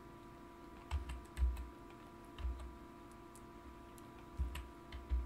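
Computer keyboard keys and a mouse button pressed, about half a dozen separate clicks with a dull thump each, at an uneven pace, over a faint steady electrical hum.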